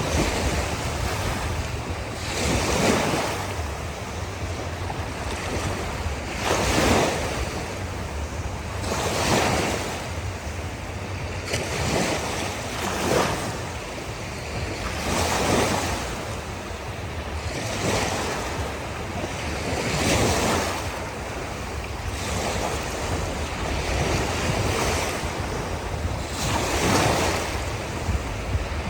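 Ocean surf on a beach, waves washing in one after another, each swelling and fading every two to four seconds over a steady low rumble.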